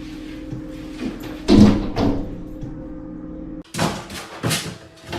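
Background music with a loud thump about one and a half seconds in. After an abrupt cut, a few sharp knocks and clatters follow.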